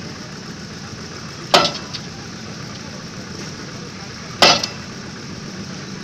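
Hammer blows on a sheet pile being driven into dense clayey soil: two sharp strikes about three seconds apart, each followed by a brief rattle. A steady engine hum runs underneath.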